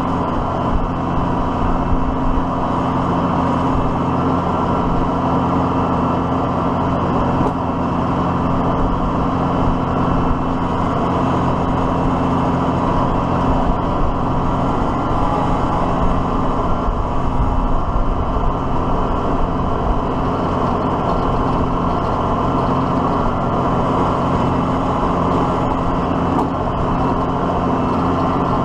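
Diesel tractor engine running steadily at a constant speed.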